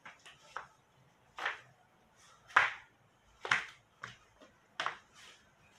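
Flip-flops slapping on a tiled floor as someone steps: about seven sharp slaps at uneven intervals, the loudest two in the middle.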